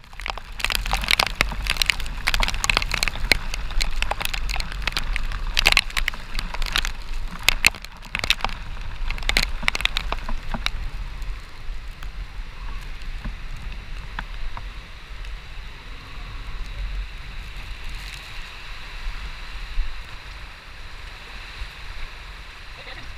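Rain on a motorcycle rider's camera while riding: many sharp raindrop ticks over a steady low wind rumble and hiss. The ticks are dense for the first ten seconds or so, then thin out to a softer hiss.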